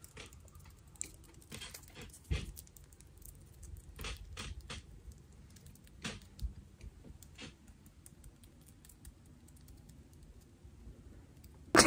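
Fingernails and fingertips tapping and scratching at a dried, cracked Aztec clay face mask on the skin: faint, irregular little clicks and crackles, a few of them louder.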